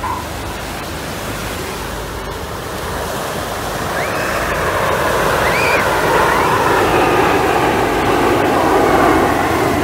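Jet noise from a formation of BAE Hawk jets passing overhead: a steady rushing sound that grows louder through the middle and then holds.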